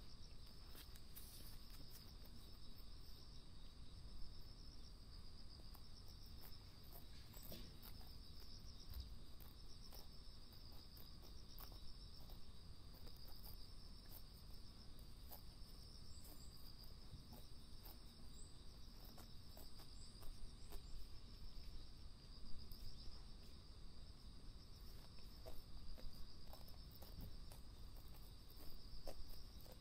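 A steady, high-pitched chorus of insects chirring, with scattered faint clicks of deer tearing and chewing grass close to the microphone.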